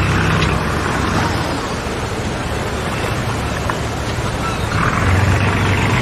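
A motor running steadily under a rush of wind and water noise, as heard from a small boat on the sea. The engine hum grows stronger again about five seconds in.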